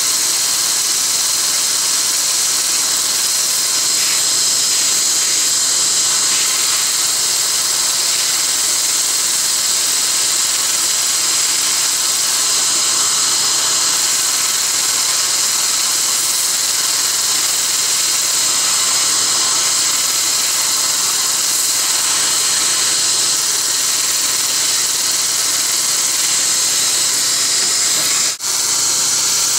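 Er,Cr:YSGG dental water laser running, its air-water spray making a steady, loud hiss as it works inside a tooth for root canal treatment, with one brief break near the end.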